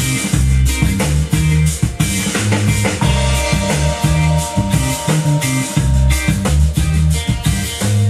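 Instrumental rock music with guitar, bass and a drum kit keeping a steady beat, played back through a vintage stereo receiver in a sound test.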